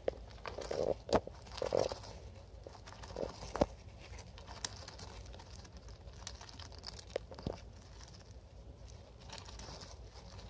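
Wood-shaving bedding rustling and crunching as a small pet rodent digs and burrows through it, with bursts of scratching in the first couple of seconds and a few sharp taps scattered through.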